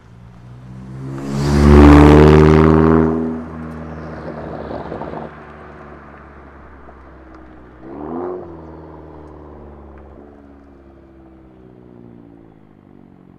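Chevy Sonic turbo four-cylinder with a straight-pipe exhaust (no cat, resonator or muffler) drives past loudly about two seconds in, then pulls away. Its engine note rises briefly again about eight seconds in before fading into the distance.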